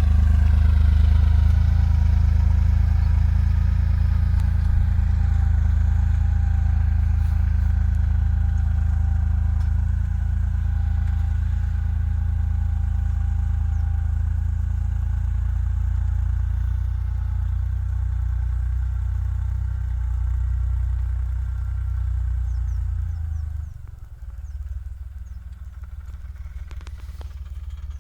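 Heavy diesel engine of farm machinery running steadily with a deep, even hum, then easing off to a quieter, lower running state about three-quarters of the way through.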